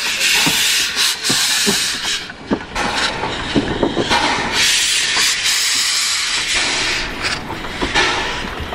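Small 0-6-0 steam tank locomotive moving slowly, its open cylinder drain cocks hissing steam in pulses about a second or so apart. Short knocks and clanks come from the rods and wheels on the rails.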